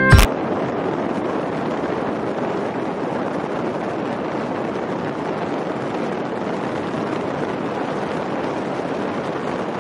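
Steady, even rushing noise with no tone in it, following a strummed guitar that cuts off just as it begins.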